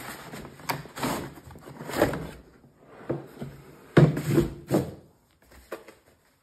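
Cardboard box scraping and rustling as a hard plastic tool case slides out of it, then the case knocks down onto a wooden tabletop with a heavy thud about four seconds in, followed by a couple of lighter knocks.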